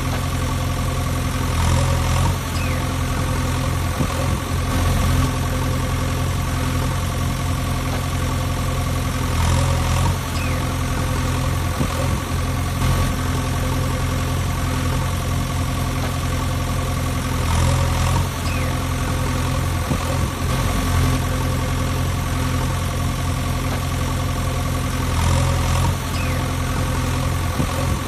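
Engine idling steadily. It is a looped recording: the same swell comes back about every eight seconds.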